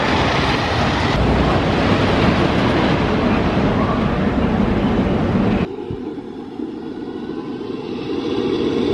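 Trains of a Great Coasters International wooden roller coaster running over the wooden track, a loud steady rumbling noise. It drops abruptly to a quieter, lower rumble about two-thirds of the way through, then builds again near the end.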